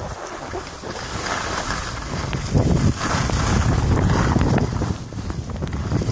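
Wind buffeting a phone's microphone as the skier holding it runs downhill, the rumble growing stronger after about two and a half seconds, with skis swishing on the snow.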